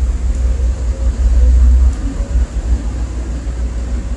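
Wind buffeting the microphone in an uneven low rumble, strongest about a second and a half in, over the steady drone of a harbour tug's engine.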